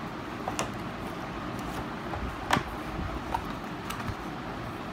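Handling a cardboard smartwatch box and lifting out its card insert: a few light clicks and taps, the sharpest about halfway through, over a steady background hum.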